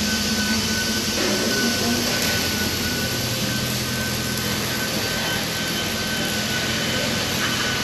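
Chevy full-size SUV's V8 idling steadily through a freshly installed aftermarket muffler exhaust, a constant low drone with no revving.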